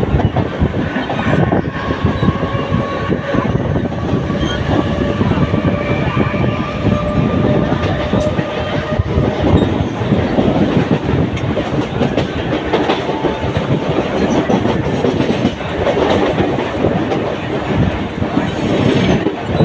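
Mumbai suburban local electric train running at speed, heard from on board: continuous rumble with wheels clattering over the rail joints, and a steady whine over the first several seconds.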